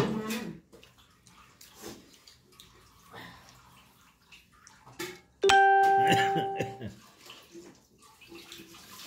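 A single ringing ding about five seconds in: one clear pitched tone with overtones that starts suddenly and fades over about a second and a half. Faint small clicks of eating fill the quiet around it.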